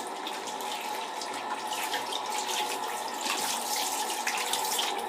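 Tap running steadily into a sink while shaving lather is rinsed off a hand, with irregular splashing over the flow.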